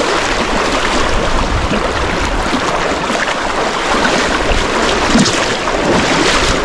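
Shallow river water rushing and splashing close by, a steady noise with no breaks.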